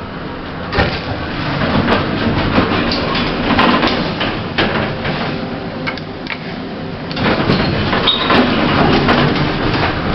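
Doors of a 1980s Thyssen passenger lift sliding open and shut, with the clatter and clicks of the door gear, twice over.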